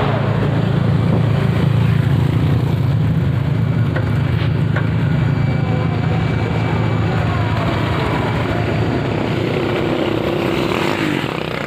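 Honda CB motorcycle engine running steadily on the move: a continuous low drone over a rushing hiss of noise, easing slightly near the end.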